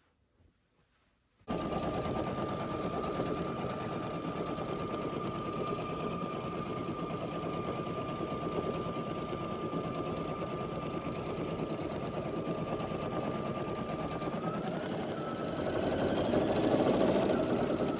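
Brother Innov-is 880E embroidery machine stitching a design: a rapid, even needle chatter over a steady motor whine. It starts suddenly about a second and a half in, and near the end the whine steps up slightly in pitch and the stitching gets louder.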